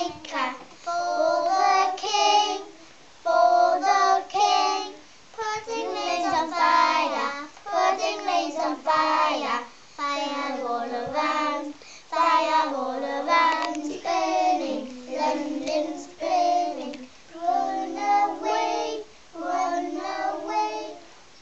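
A small group of young children singing together without instruments, in short phrases with brief pauses between them.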